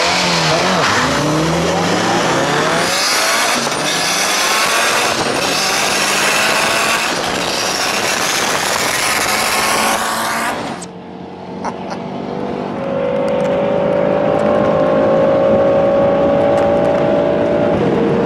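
Cars accelerating hard side by side on a wet road, a tuned turbocharged Mitsubishi Evo VI among them: engine notes climb in pitch through the gears under a loud rush of wind and spray. About ten seconds in the sound cuts to inside the cabin of a BMW M6 Coupé with its twin-turbo V8, whose steady engine note climbs slowly and drops at an upshift near the end.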